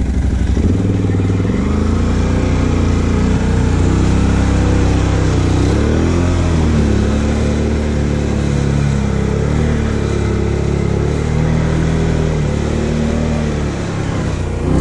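Arctic Cat ATV engine, freshly swapped in and being broken in, running under load while ridden slowly through mud and shallow creek water, its pitch rising and falling as the throttle changes.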